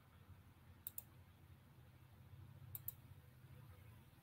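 Near-silent room with faint computer clicks: two quick clicks about a second in and two more near three seconds, over a low hum of room noise.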